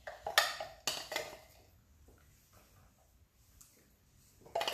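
Metal spoon clinking against a bowl while scooping crumb base: a few sharp clinks in the first second and again near the end, quiet in between.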